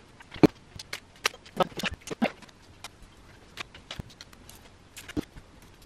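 Rustling and short irregular clicks of plastic as a small cut piece of peel-and-stick subway tile sticker is handled and pressed onto the wall. The clicks come thickest in the first couple of seconds, with a few more near the end.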